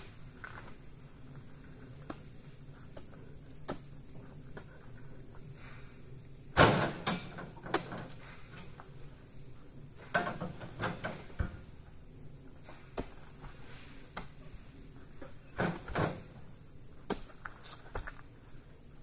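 Scattered sharp knocks and thuds in a few clusters, the loudest about a third of the way in. A steady, high insect buzz runs underneath.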